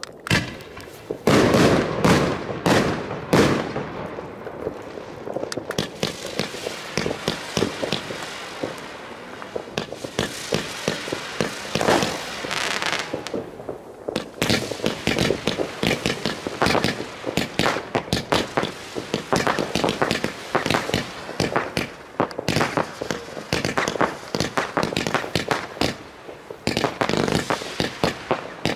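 Fireworks going off in rapid succession: a dense run of sharp bangs and crackling. The loudest bangs come in a cluster in the first few seconds, with another strong one about twelve seconds in.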